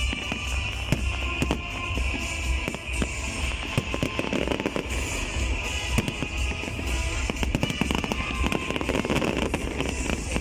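Aerial fireworks display: a rapid, irregular run of shell bursts and bangs, several a second, with crackling. Music plays continuously underneath.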